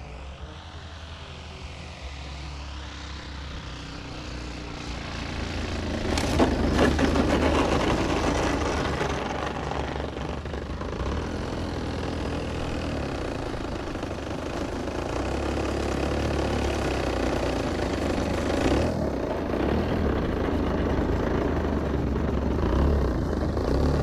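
Radio-controlled model airplane flying, its engine and propeller heard continuously, with a faint shift in pitch in the first few seconds and a rise in loudness about six seconds in that then holds.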